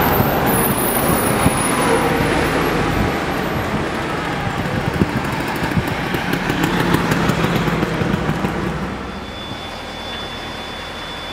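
Street traffic: road vehicles passing, with a city bus going by near the start. The noise swells again a little past the middle and eases near the end, when a thin steady high tone comes in.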